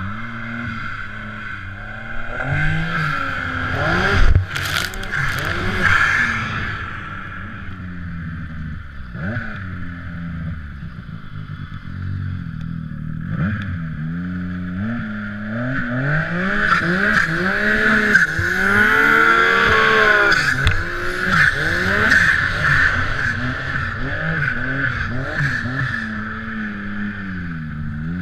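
Yamaha SR Viper M-TX turbo snowmobile's three-cylinder four-stroke engine revving up and down under load, with a steady high-pitched whine over it. There is a sharp knock about four seconds in, and the revving is hardest about two-thirds of the way through.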